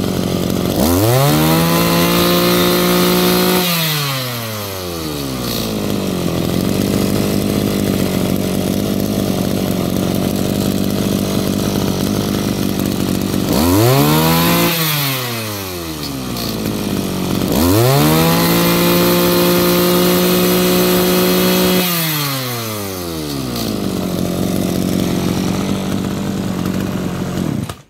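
Maruyama MB3230 brush cutter's two-stroke engine revved up hard and held at high revs for about three seconds, then dropped back to a steady idle. It is given a quick blip and a second long run at high revs, falls back to idle again, and cuts off suddenly at the end. It picks up revs quickly and crisply, a sign of a strong, well-tuned engine.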